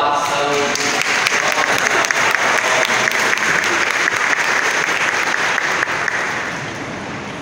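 Congregation applauding: many hands clapping together, fading away toward the end.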